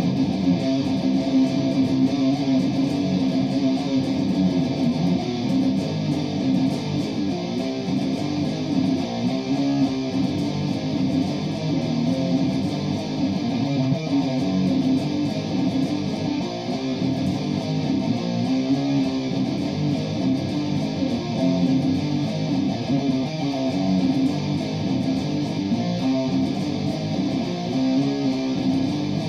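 Solo guitar played continuously, a steady stream of plucked notes with no break.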